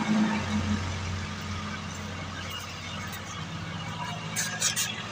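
Machinery running with a steady low hum, and a few sharp clicks near the end.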